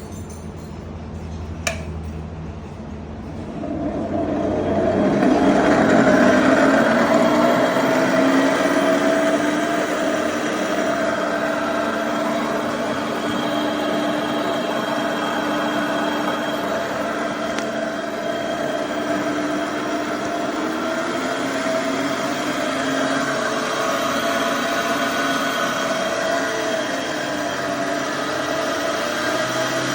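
The Epic E60L's motor with a bad bearing: a click about two seconds in, then the motor starts up, its whine rising in pitch for a few seconds before it settles into a steady run with a whine and a rough, grinding noise over it.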